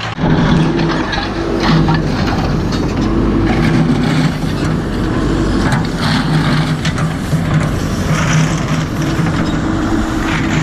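JCB 4CX backhoe loader's diesel engine running at working revs, its note rising and falling, with scattered short knocks and clanks.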